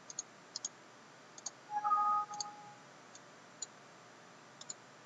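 Light computer mouse clicks, mostly in quick pairs, a few times a second apart. A brief pitched tone sounds about two seconds in.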